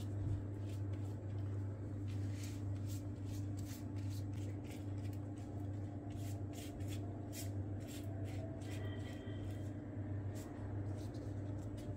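Silicone pastry brush spreading tahini across thin layered phyllo (baklava yufka) sheets: quick, irregular soft brushing strokes over a steady low hum.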